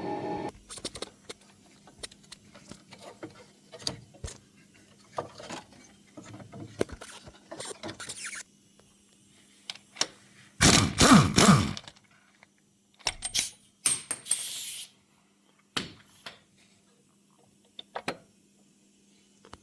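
Scattered clicks, knocks and scrapes of handling work, with quiet gaps between, and a louder rattling burst lasting about a second roughly eleven seconds in.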